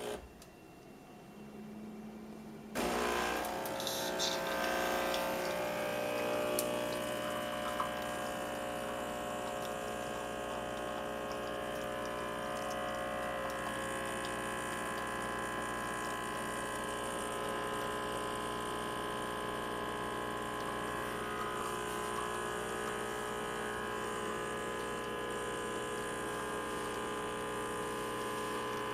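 Espresso machine's electric pump starting up about three seconds in and then running with a steady buzzing hum.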